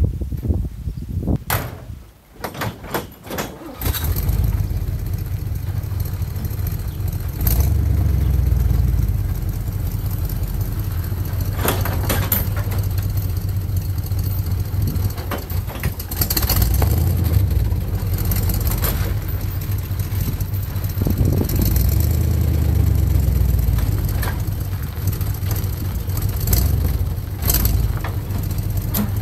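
Old flatbed tow truck's engine starting after a few knocks, then running under load as it drags a van on a tow sling, getting louder about 8 seconds in and again around 16 seconds.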